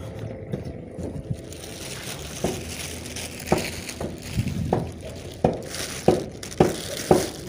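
Clear plastic bag caught on a fishing line, crinkling and rustling as hands work it off the hook, with sharp crackles about twice a second from about two seconds in.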